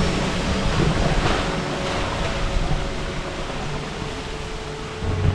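Steady rushing noise, heaviest in the low end, with background music faintly underneath; the music comes up clearly near the end.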